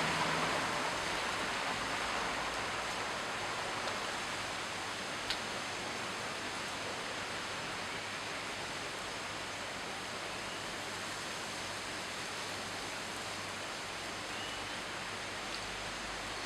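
Steady rain falling, an even hiss, with a single sharp click about five seconds in.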